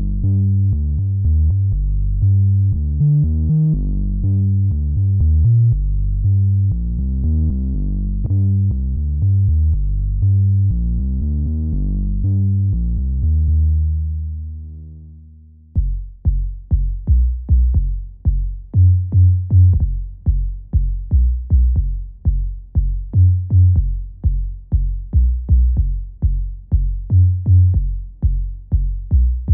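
Elektron Syntakt drum machine playing a deep synth bassline sequence that ends on a held low note and fades out about halfway through. A pattern of deep kick drums then starts, about two hits a second, with bass notes under it.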